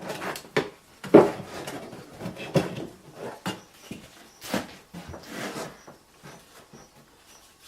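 Clamps and a treated 2x4 being handled and clamped to a workbench: a run of irregular knocks, clatters and scrapes, the loudest about a second in. Near the end it thins to a faint, evenly spaced light ticking.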